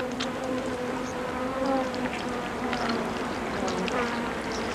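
A flying insect buzzing: a steady, slightly wavering drone, with a few faint ticks over it.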